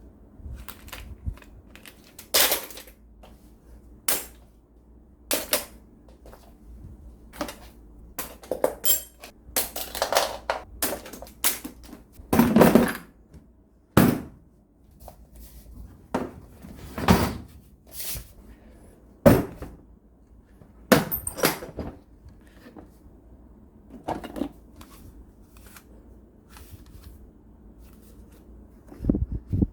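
Hand tools being handled and set down on a hard surface: irregular clinks, knocks and rattles, a few louder thunks among them.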